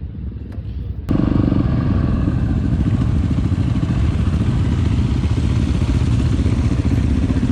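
Motorcycle engine running with a fast, even pulse, suddenly much louder about a second in and then steady.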